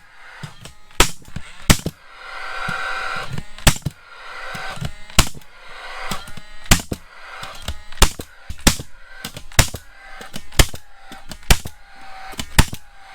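Nails being driven into wood: a string of loud, sharp bangs at irregular intervals, about one a second, some in quick pairs.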